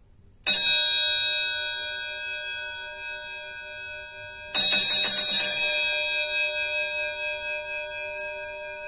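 Vatikan (Vatican) bell horn, an electric car horn whose piston strikes two yellow-brass bell bowls, sounding on its own. It gives two bell strikes about four seconds apart, each ringing on and slowly fading.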